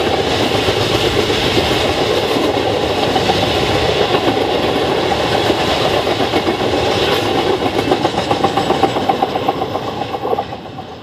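Rail tank cars of a freight train rolling past, steel wheels clicking rhythmically over the rail joints. The noise drops away suddenly as the last car clears, near the end.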